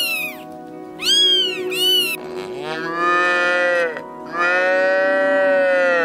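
Kittens meowing a few times in short, high calls that rise and fall in pitch. About two seconds in, a cow moos twice in long drawn-out calls over steady background music.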